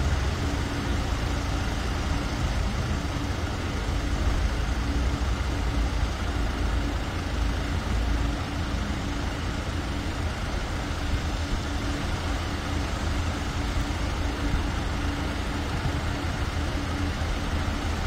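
A car engine idling steadily: a low, even rumble, with a faint steady hum over it through the first several seconds.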